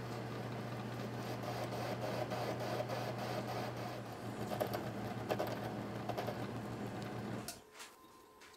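Metal lathe running with a tool fed into the spinning metal workpiece: a steady motor hum under the cutting noise, with a few sharp ticks, stopping abruptly about seven and a half seconds in.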